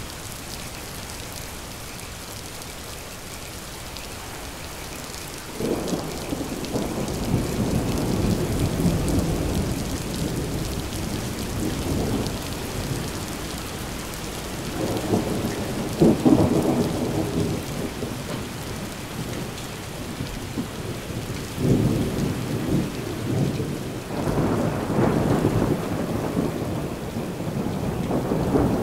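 Steady rain with rolling thunder. A long rumble starts about five seconds in, a sharper, louder peal comes about sixteen seconds in, and more rumbles roll through near the end.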